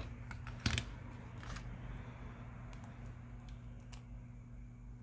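Scattered small clicks and scrapes of a flathead screwdriver prying the vibration motor loose inside a Samsung Galaxy A20, the sharpest about a second in, over a steady low hum.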